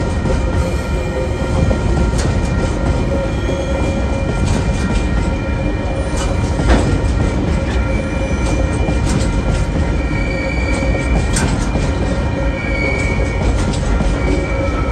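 Container wagons of a freight train rolling past: a steady rumble of steel wheels on the rails, with scattered clicks from the wheels over rail joints and thin, high wheel squeal that comes and goes.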